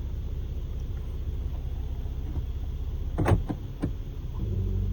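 Lexus RX330's 3.3-litre V6 being started: a brief crank with a few sharp strokes about three seconds in, then the engine catches and settles into a steady idle near the end.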